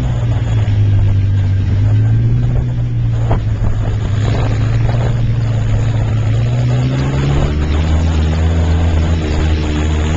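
Side-by-side off-road vehicle's engine running steadily under way, with road and wind noise. The engine note drops lower about three-quarters of the way in, and there is a single knock about a third of the way in.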